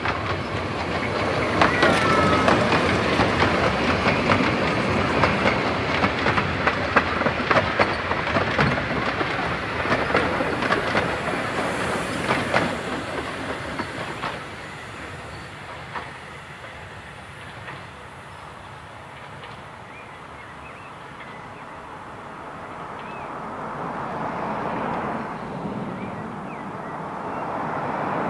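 Hunslet 0-4-0T narrow-gauge steam locomotive and its coaches running past, wheels clicking quickly over the rail joints, with a short wheel squeal about two seconds in. The sound fades about halfway through as the train draws away.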